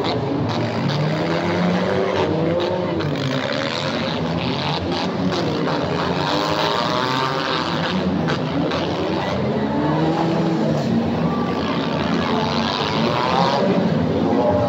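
Several demolition-derby car engines revving at once, their pitches rising and falling over one another, with a couple of sharp knocks about eight seconds in.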